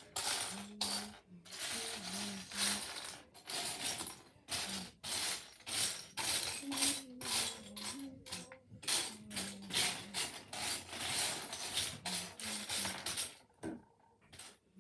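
Small plastic Lego pieces clicking and rattling continuously as hands sort and rummage through them, easing off just before the end.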